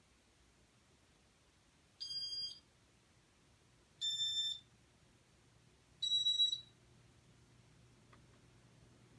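Three electronic beeps about two seconds apart from a 1997 Casablanca Stealth ceiling fan's W-32 Inteli-Touch electronics, each about half a second long and slightly different in pitch. A low motor hum from the XLP-2000 motor starts with the first beep and grows stronger after the second, as the fan is switched on and its speed changed.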